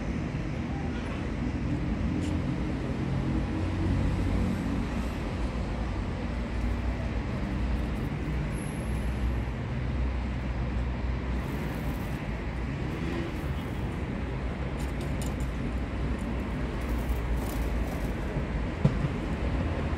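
Steady low background rumble, like traffic noise, with one short sharp knock near the end.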